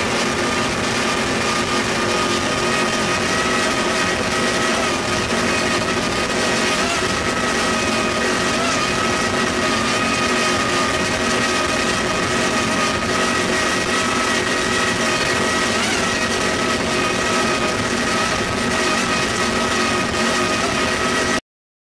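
Cigarette powerboat's engines running steadily at high speed, heard from on board over a constant rush of wind and spray. The sound cuts off suddenly at the very end.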